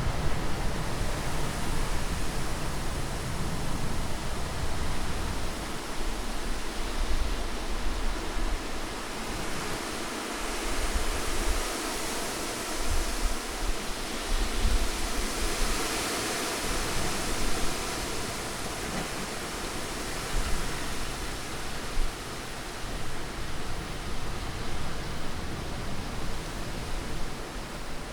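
Wind blowing as a continuous rushing noise, swelling about halfway through, over an uneven low rumble.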